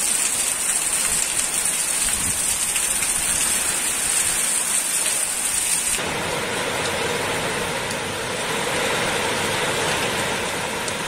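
Heavy rain pouring down steadily in a gusty storm wind; the sound changes abruptly about six seconds in.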